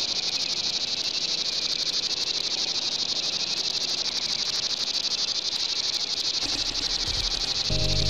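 Steady high insect chorus, a dense shrill with a fine rapid pulse. Music comes in near the end.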